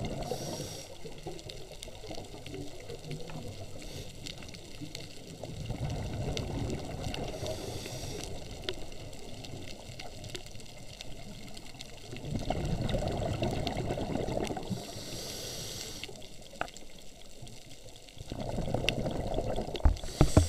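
Scuba diver breathing through a regulator underwater: four rushing bursts of exhaled bubbles, roughly every six seconds, with a brief hiss of inhaled air between them. A few sharp knocks near the end.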